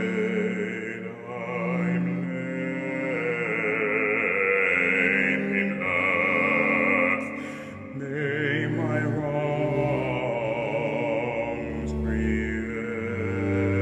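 Operatic baritone voice singing a slow melody in long held notes with vibrato, accompanied by violin and cello. The phrase breaks briefly about eight seconds in before the next one begins.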